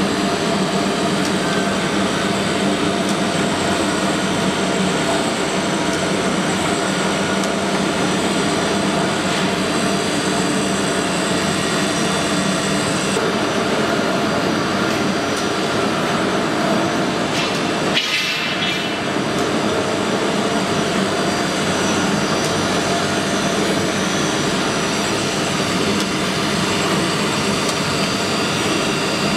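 ATC CNC router with a boring and drilling unit at work, its spindle and bit cutting into a laminated particleboard panel: a loud, steady machine noise with a short break in it about two-thirds of the way through.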